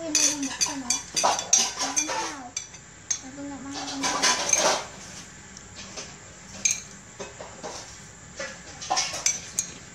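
Metal spoons and chopsticks clinking and scraping against ceramic plates and bowls as people eat, in short irregular clatters.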